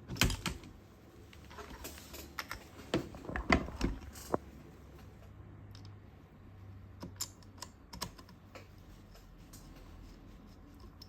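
Light clicks, taps and knocks of a small screw and screwdriver being worked into a gun rail. The sharpest knocks come right at the start and again around three to four seconds in, then only a few faint ticks.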